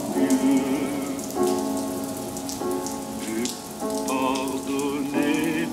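Held musical chords of several notes, changing about every second and a half and wavering in pitch near the end, over the patter and splashing of water drops.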